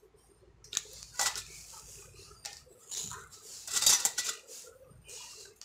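Small metal parts (nuts, bolts, washers and springs) clinking and rattling in a stainless steel bowl as a hand rummages through them. The clatter comes in several short bursts, the loudest about four seconds in.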